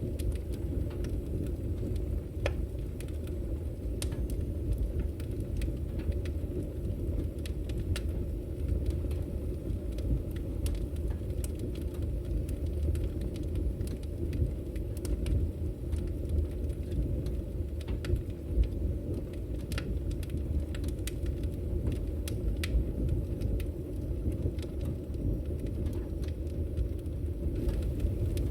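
Fire burning in a chimney fireplace: a steady low roar with scattered sharp crackles and pops.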